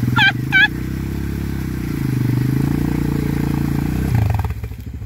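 Quad ATV engine revving hard under throttle as the machine is driven and pulled out of deep mud, with the revs rising and falling, then easing back to a low idle about four seconds in. Two short, high, falling squeals sound just after the start.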